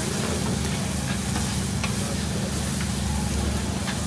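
Diced wagyu beef, rice and chopped garlic and chilli sizzling on a flat-top griddle while two metal spatulas stir and scrape them, with a few light spatula clicks on the plate. A steady low rumble runs underneath.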